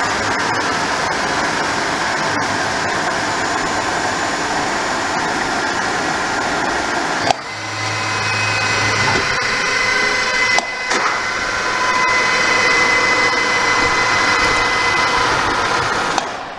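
Deckel FP 42 NC universal tool milling machine running with a steady mechanical noise. About seven seconds in a sharp click changes the sound to a steadier run with high whining tones. The sound fades out at the very end.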